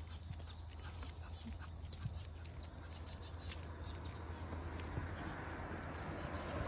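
Quiet outdoor ambience with a low steady hum and faint ticking. Two short, high, steady chirps, a bird calling, come about two seconds apart in the middle. A hiss builds slowly near the end.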